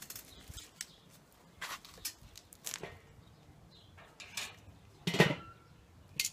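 Metal barbecue tongs and the steel lid of a small drum smoker clattering as a rack of pork ribs is put back on the smoker. There is a series of light clicks and knocks, and the loudest clank comes about five seconds in, as the lid goes back on the drum.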